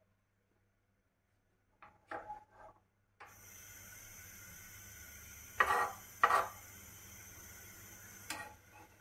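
A steel spatula scraping and knocking against a flat tawa griddle, with two loud clatters a little past the middle and a lighter one near the end. From about three seconds in a steady hiss with a thin high whine runs underneath.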